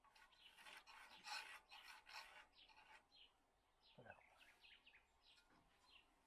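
Faint scraping strokes, about seven in quick succession over the first two seconds, then scattered faint bird chirps.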